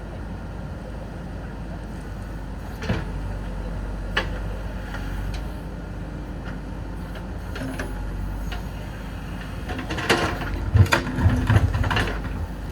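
Backhoe loader's diesel engine running steadily, with a sharp knock about three seconds in, another a second later, and a loud run of knocks and clunks near the end.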